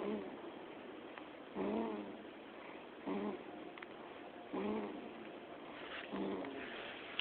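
Sleeping baby snoring: short snores, each with a slight pitch to it, about one every second and a half.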